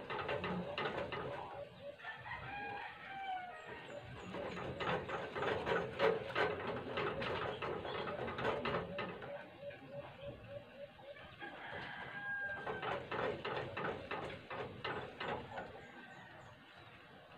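Chickens: a rooster crows about two seconds in, with runs of short clucks through the rest.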